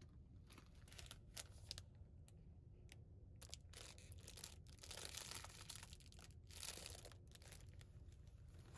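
Faint crinkling of a thin plastic bag wrapping a pair of slippers as it is handled, in several bursts, loudest about halfway through.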